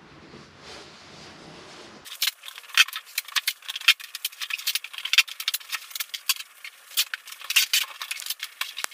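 Quiet at first. About two seconds in, a fast, irregular run of sharp crackles and rips starts: tape being pulled off a roll and torn into strips.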